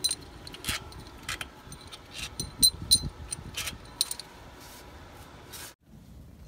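Irregular light metallic clinks and taps, several ringing briefly, as the steel tapered wedges and nuts on a rear drive-axle hub flange are worked loose and handled.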